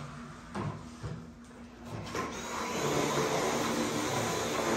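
A steady whirring machine noise starts about two seconds in and keeps going, with a few sharp knife taps on a cutting board just before it.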